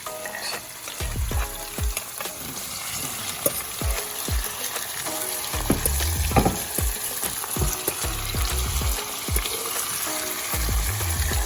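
Food frying and sizzling steadily in a hot pot while it is stirred, with occasional knocks of the utensil against the pot. Faint background music plays underneath.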